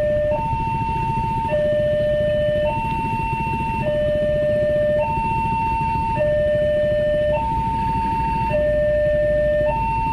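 Railway level-crossing warning alarm sounding while the barrier is down: an electronic two-tone signal alternating a higher and a lower tone, each held a little over a second, repeating steadily. A steady low rumble runs underneath.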